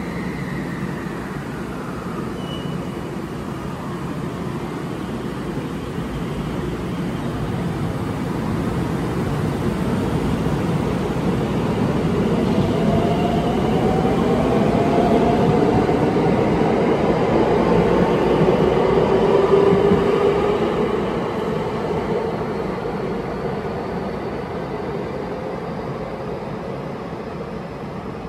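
Four-car 521 series electric train pulling away from the platform: its VVVF inverter and traction motors give a whine that rises in pitch as it accelerates, over the rumble of wheels on rail. The sound grows louder as the cars pass, is loudest a little past the middle, and fades as the train leaves.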